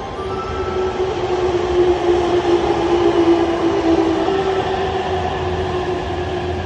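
Freight train hauled by an EH500 electric locomotive rolling past, loud, swelling to a peak about three seconds in and then easing off. A steady whine sinks slightly in pitch above the rumble of the wheels.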